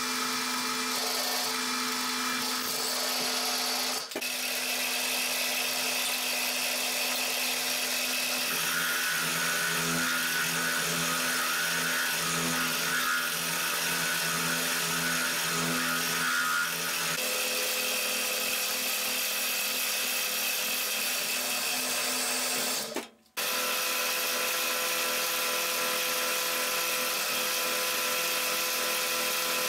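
Milling machine running as an end mill cuts a slot in a 6 mm plate: a steady machine hum, with a harsher cutting sound added for several seconds in the middle. The sound breaks off briefly twice.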